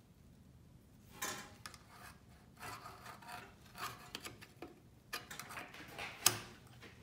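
Old metal dental instruments being handled and shifted in their holders on a dental unit: rubbing and scraping with small knocks starting about a second in, and one sharp click near the end.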